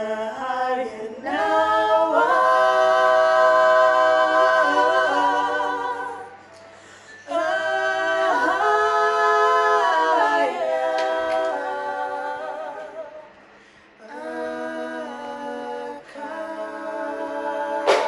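A cappella vocal harmony: layered voices singing long held chords in phrases, with brief breaths between them.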